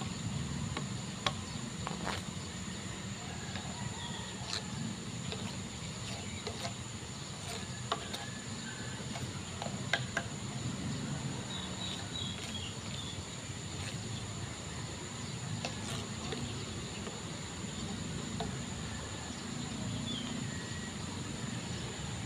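Outdoor ambience of a steady, high-pitched insect drone over a low rumble, with a few faint clicks and chirps scattered through.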